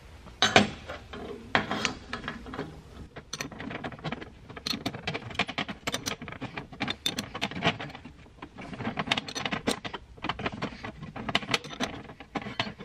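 Hand wrench working a threaded-mandrel rivet nut setting tool: short back-and-forth strokes on the tool's drive nut give runs of quick metal clicks and clinks, starting about half a second in. The 3/8-16 rivet nut is being drawn up so its back crushes and mushrooms out.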